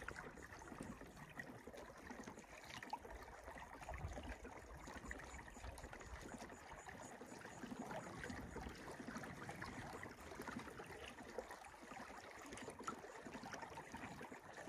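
Faint trickling and lapping of water against a sailing kayak's hull and the paddle blade held in the water as the boat moves along.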